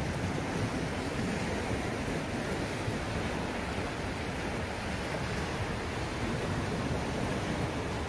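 Small sea waves washing in over rocks and a pebble beach, a steady rushing surf.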